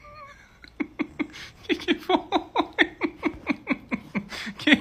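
A woman laughing hard in a fast run of short, falling 'ha' bursts, about five a second, starting about a second in.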